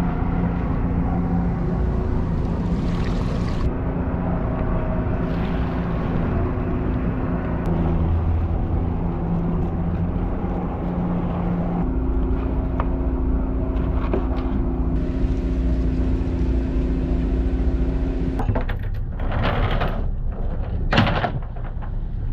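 Outboard motor on a small open fishing boat running steadily, a low drone with a constant pitch. Near the end the drone gives way to a few short rushes of noise.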